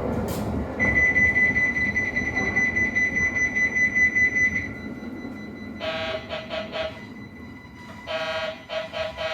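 Train's warning alarms during an emergency stop: a steady high electronic alarm tone for about four seconds over the rumble of the train, then two bursts of rapidly pulsing electronic warning tones, about five pulses a second.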